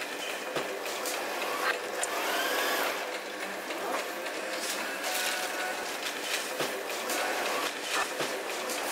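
Steady machine-like whirring noise with scattered light clicks and taps.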